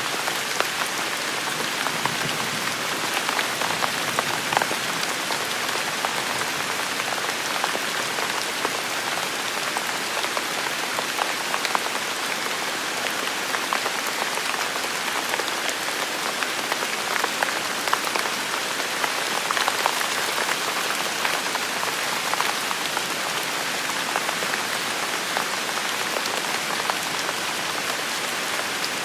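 Steady rain falling on a surface, a dense even patter of many individual drops.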